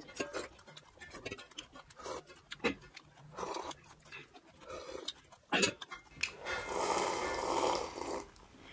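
Close-up eating sounds: small lip smacks and wet clicks of chewing. About six seconds in comes a long slurp of fish curry broth sipped from a glass bowl, lasting about two seconds.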